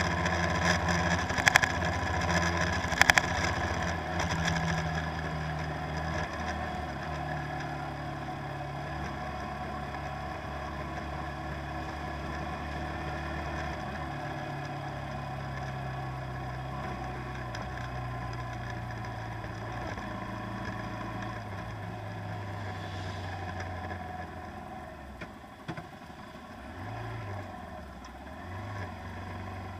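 Boat engine running with a steady low hum, with a few sharp knocks in the first few seconds; the engine sound fades away near the end.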